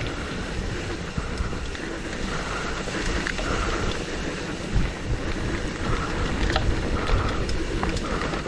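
Mountain bike descending a dirt downhill trail: steady tyre rumble and wind buffeting on the microphone, with scattered sharp clicks and knocks from the bike rattling over rough ground.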